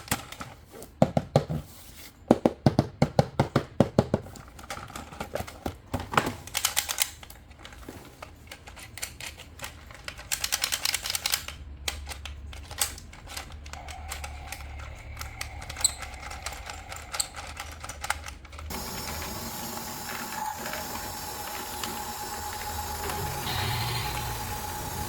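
Rapid clicking and tapping of plastic toy parts being handled, dense for the first several seconds and then sparser. About three-quarters of the way in, a steady hum with a faint high tone takes over.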